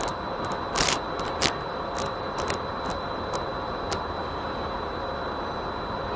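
Steady ambient noise picked up by FPV goggles' built-in microphone, with a faint steady high whine throughout. A handful of short sharp clicks come through, the loudest about a second in.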